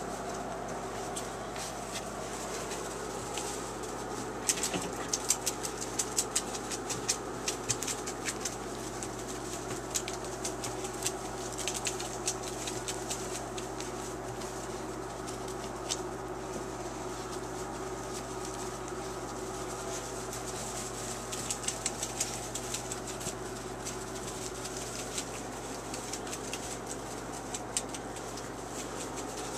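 Puppies scrabbling and tussling in wood-shaving bedding: rustling and sharp crackles of shavings and claws, busiest in two bouts, about a quarter of the way in and again past two-thirds, over a steady background hum.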